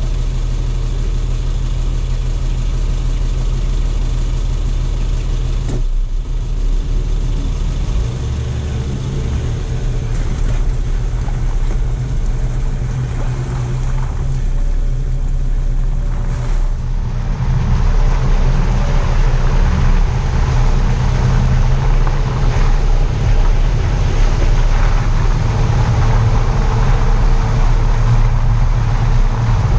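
4x4 engine running steadily, with tyres rolling over a wet, muddy lane. The tyre and road noise grows louder and rougher from about 17 seconds in.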